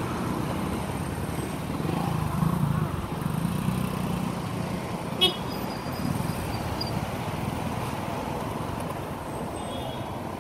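Road traffic passing close by: small motorcycle engines and cars running past, their rumble swelling in the first few seconds as motorcycles go by. A brief high-pitched horn toots about five seconds in and again near the end.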